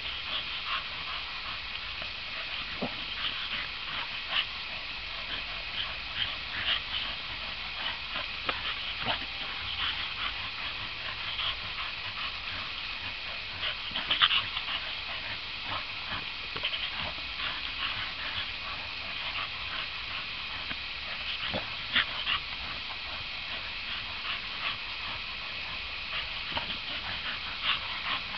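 Staffordshire bull terrier playing and jumping about: scattered short clicks and knocks over a steady hiss, with louder knocks about halfway and about three quarters through.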